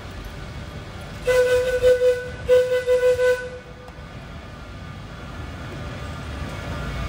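A train's horn sounds two blasts of about a second each, on one steady pitch, over a low background rumble.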